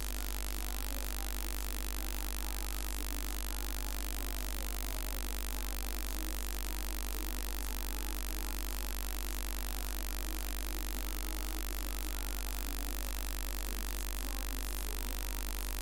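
Steady electrical hum and hiss, with a strong low mains-frequency buzz and no distinct events.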